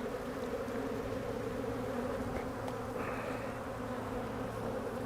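Honey bees buzzing in a steady hum around an opened hive, the colony roused by the inspection.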